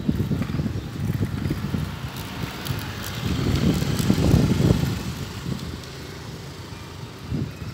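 Wind buffeting the microphone of a bicycle-mounted camera while riding, an irregular low rumble that swells about four seconds in and eases off near the end.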